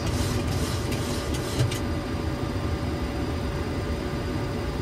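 Steady flight-deck noise of a Boeing 737-800 in flight on approach: a constant low rush of air with a faint steady hum.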